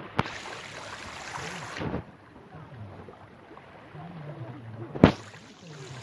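Quiet sea-shore ambience: a low, steady wash of waves and light wind, with a click just after the start and a sharp knock about five seconds in.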